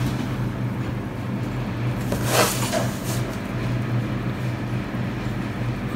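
Steady low hum in the background, with a brief swishing hiss about two and a half seconds in.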